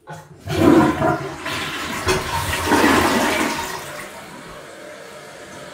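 Toilet flushing: a loud rush of swirling water for about three seconds, then dying down to a steady quieter hiss as the tank refills.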